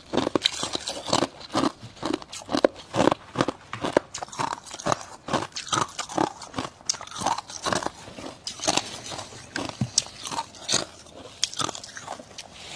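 Mouthfuls of dry, squeaky freezer frost being bitten and chewed: a steady run of sharp crunches, about three a second.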